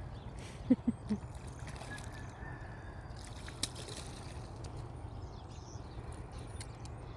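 Water sloshing over a steady low rumble, with three quick knocks close together about a second in and a single sharp click later.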